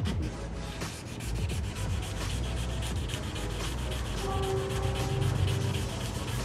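Sandpaper rubbed by hand over the body filler on a Honda C70 body panel, in quick, continuous back-and-forth strokes.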